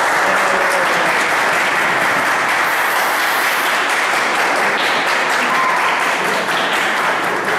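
A crowd clapping, a steady, dense applause that holds at an even level throughout.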